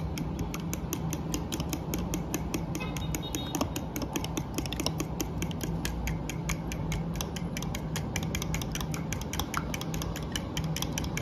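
A fork beating eggs and milk in a plastic tub, its tines tapping the sides in a quick, steady rhythm of clicks.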